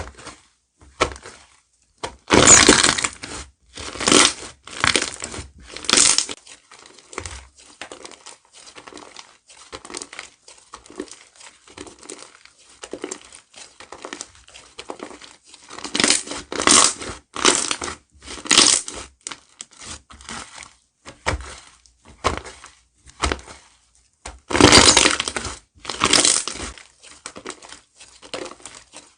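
Slime being squeezed and pressed by hand close to the microphone, making irregular runs of small clicks and crackles, with louder bursts a couple of seconds in, around the middle and near the end.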